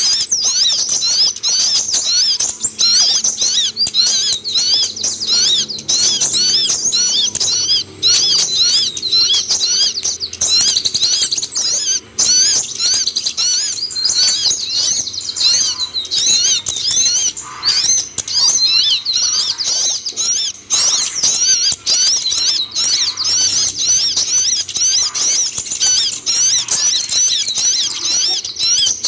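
Kolibri ninja (van Hasselt's sunbird) song: a dense, unbroken stream of quick, high-pitched chirps and twitters.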